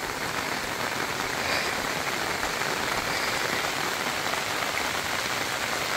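Steady heavy rain falling, an even continuous patter of drops with no single strike standing out.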